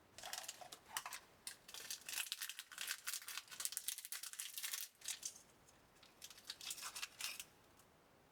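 Plastic crinkling and rustling as it is handled, in irregular bursts that ease off briefly about five seconds in, then start again before stopping near the end.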